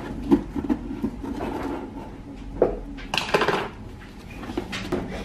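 Scissors slitting packing tape on a cardboard box, with clicks, taps and scraping of the cardboard, then a half-second tearing sound about three seconds in as the tape is pulled loose.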